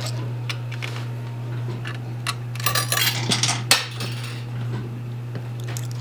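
Quarters clinking and sliding against one another on a coin pusher arcade machine's playfield: scattered clinks, thickest about halfway through, over a steady low hum.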